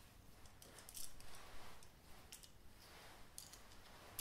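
Faint handling noise of small objects turned over in the hands: a couple of soft rustles, then a few light clicks.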